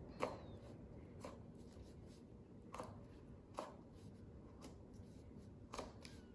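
Faint crayon on paper: a few light strokes and taps spread through, with a quiet background between them.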